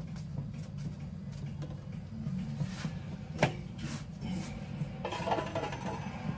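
Kitchen utensils knocking and clattering: scattered clicks, one sharp knock about three and a half seconds in and a short burst of clatter near the end, over a steady low hum.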